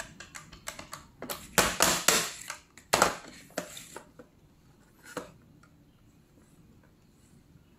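Plastic keypad buttons of an ECG-019 caller-ID corded desk telephone clicking as they are pressed in quick succession. Then knocks and clunks of the phone's plastic body being picked up and turned over on a cardboard sheet, the loudest about three seconds in and a last one about five seconds in.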